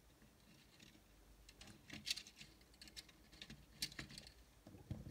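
Faint, scattered small clicks and rustles of wire being handled and pressed along the inside of a model railway coach body, starting about a second in.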